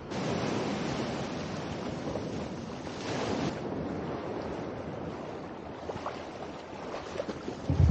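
Calm sea water washing and splashing around swimmers wading in, with some wind on the microphone.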